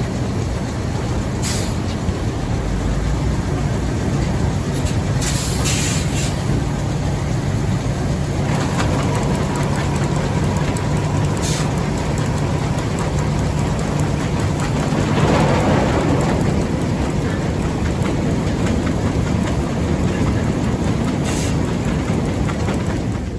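Sugar beet piler machinery running steadily: a loud mechanical din with a low hum, broken by a few short clanks, then cutting off abruptly at the end.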